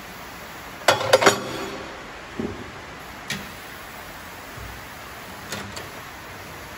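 Metal clatter as a tyre is levered off an old steel wheel on a tyre-changing machine: a burst of sharp clanks with a brief metallic ring about a second in, then a few lighter single knocks.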